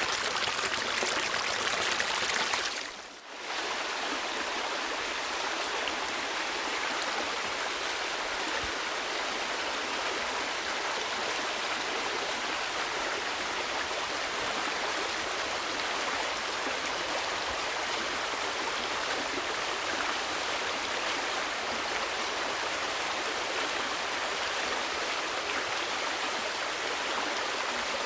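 Running water of a stream, a steady rushing and babbling, that dips briefly about three seconds in and then carries on evenly.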